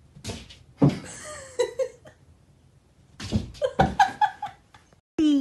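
A person laughing in two bouts of short chuckles and snickers. Right at the end, after a brief gap, a loud held voice-like call begins, its pitch falling slightly.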